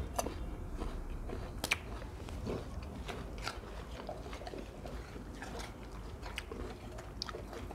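Rottweilers chewing pieces of raw jicama: irregular crisp crunches, the sharpest about a second and a half in.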